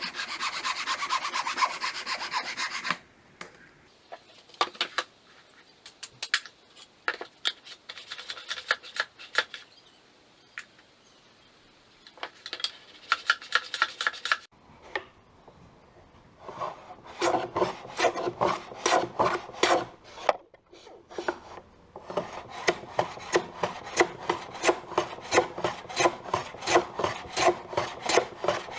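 Hand tool working a piece of pallet wood in quick back-and-forth scraping strokes, about three a second, in several runs with short pauses between.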